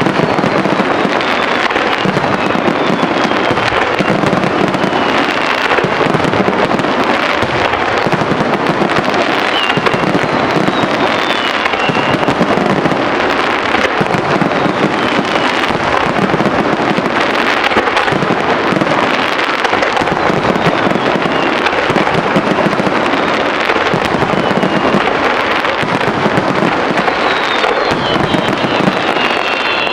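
Aerial fireworks display: a dense, continuous barrage of shell bursts and crackling, with short whistles now and then.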